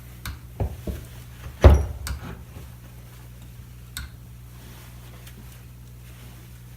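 A few clicks and knocks of metal hand tools and engine studs being handled on a workbench, the loudest a single thump about one and a half seconds in.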